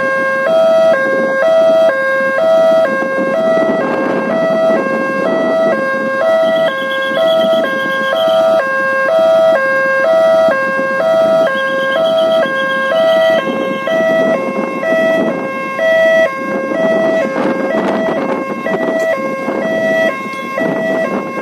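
Railway level-crossing alarm sounding continuously, an electronic warning tone switching rapidly back and forth between two pitches. This signals that the barrier is down and a train is approaching.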